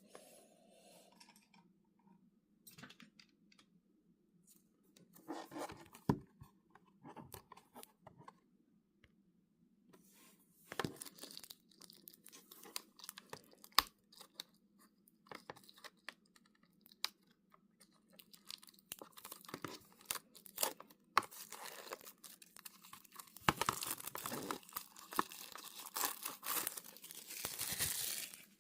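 Packaging being torn open and crinkled by hand, with scattered rustles and clicks of handling. Near the end comes a longer stretch of continuous tearing.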